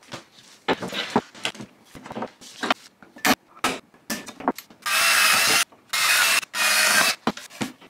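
Quick-release bar clamps ratcheting tight onto a plywood board, a string of sharp clicks, then a cordless drill running in three short bursts as it bores a 7/32-inch hole through the plywood.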